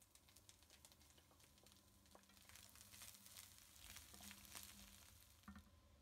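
Faint sizzling of diced vegetables and soya beans frying in a pan, with many small scrapes and ticks from a wooden spatula stirring them.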